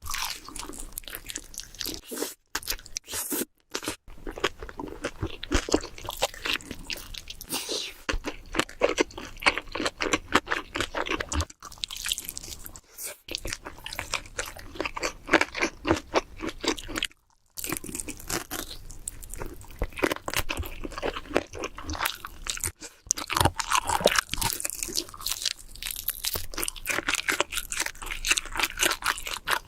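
Close-miked crunching and chewing of crispy food: dense, irregular crackly bites and chews, broken several times by abrupt silent cuts between clips.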